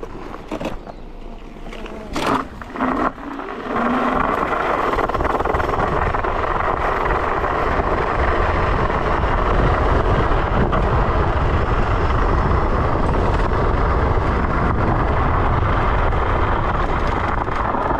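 Electric scooter riding along with a steady rush of wind on the microphone, starting about four seconds in after a few short knocks.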